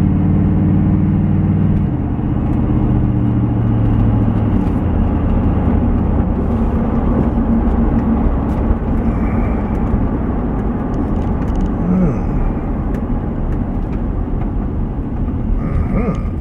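Truck engine and road rumble heard from inside the cab while towing a trailer; the engine note drops in two steps in the first few seconds as the truck slows, then settles into a steady low rumble.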